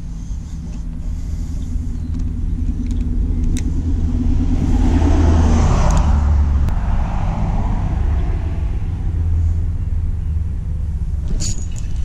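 Road traffic passing on the bridge overhead: a low, steady rumble that swells to its loudest about halfway through and then fades away, with a few faint ticks.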